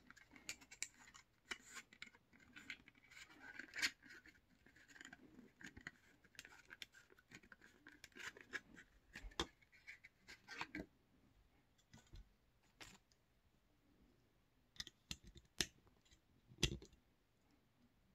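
Quiet handling noises of a shaving trial kit: cardboard and plastic packaging rustling and scraping as items are picked up and moved, with scattered small clicks. Near the end come a few sharper clicks from the plastic razor handle and cartridge tray.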